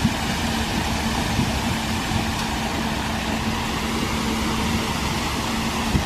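Concrete mixer truck's engine running steadily with a constant hum while it discharges concrete down its chute.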